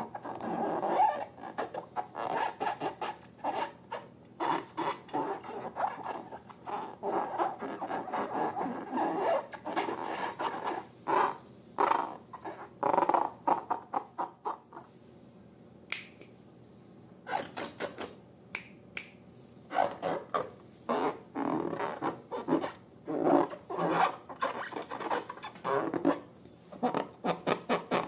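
Slime being squeezed and worked by hand: rapid wet squelches and crackling pops, pausing briefly about halfway with a single sharp click.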